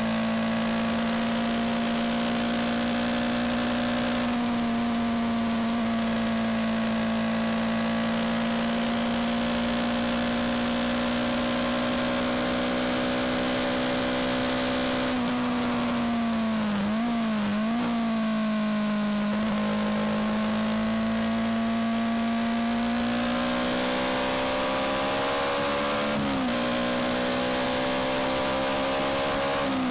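Yamaha MT-125's single-cylinder four-stroke engine running under way at a steady cruise, with wind rush. About halfway through the engine note drops and wavers, then climbs steadily and dips sharply once near the end before settling again.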